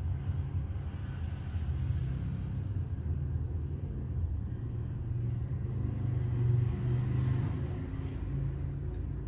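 Low, steady rumble of a motor vehicle engine running nearby, swelling slightly around six to seven seconds in, with a brief hiss about two seconds in.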